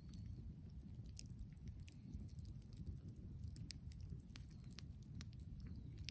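Brushwood bonfire crackling: scattered sharp pops and snaps at irregular intervals over a low, steady rumble.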